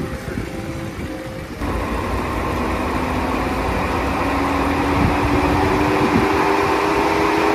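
Mercedes-Benz CLS 350 (C219) 3.5-litre V6 idling. About a second and a half in, the electric radiator cooling fan switches on and spins up, a rising whir that grows louder over the idle; the temperature sensor has triggered it for extra cooling.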